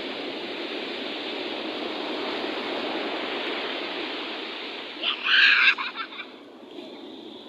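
Sea surf washing up the beach, a steady rush of waves, with a short loud sound cutting in about five seconds in and fading within a second.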